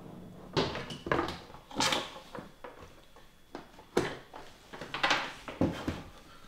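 Handling sounds from a large model helicopter: a string of separate knocks, clicks and short scrapes as fuselage parts and a cover at the rear rotor mast are moved.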